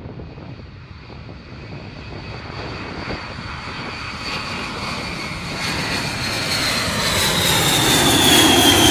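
B-52H Stratofortress taking off, its eight Pratt & Whitney TF33 turbofan engines at takeoff power. The noise grows steadily louder as the bomber lifts off and climbs toward overhead, with a high whine that slowly falls in pitch near the end.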